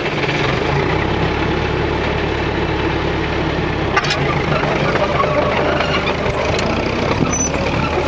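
Track-Marshall 56 crawler tractor's diesel engine running steadily at close range.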